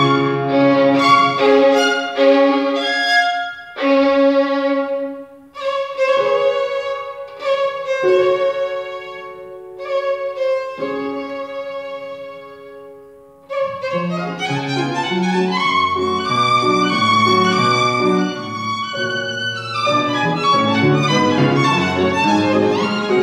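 Violin and grand piano playing together. Partway through the music thins to a quiet passage that fades away, then about fourteen seconds in both come back in loudly, the violin rising over low piano notes.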